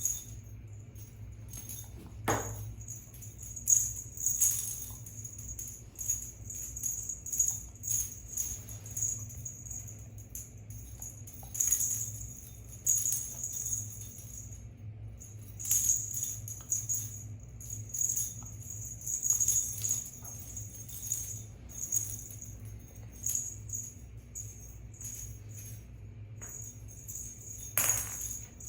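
Small bells jingling in irregular shakes and rattles, over a low steady hum.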